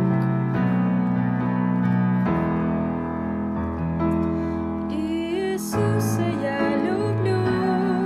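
Gentle keyboard music: held chords changing every second or so, with a wavering melody line entering about five seconds in.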